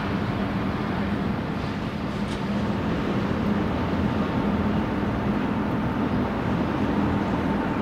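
Steady low rumble and hum of the moored cruise ship Nippon Maru's machinery running, with a faint steady tone above it.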